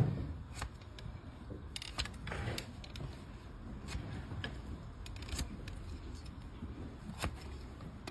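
Hoof-trimming blade cutting and scraping a donkey's overgrown hoof horn, making scattered sharp clicks and scrapes at irregular intervals over a low rumble.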